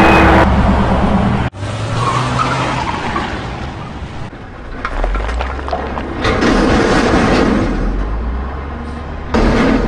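Music stops abruptly about half a second in. A vehicle engine then rumbles low and steadily, with scattered clatters and squeaks over it and a louder burst of noise near the end.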